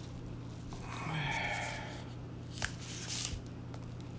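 Fingers pressing a replacement iPhone display down into the phone's frame: a single sharp click, then a brief scrape of glass and plastic. Just before, a short breathy sound like an exhale.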